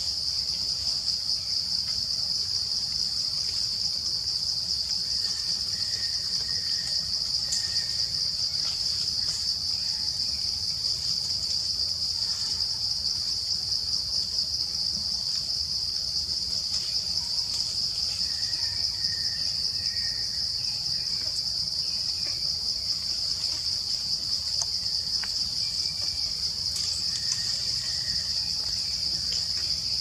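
Steady, loud, high-pitched drone of an insect chorus in the forest canopy, holding one even pitch without a break.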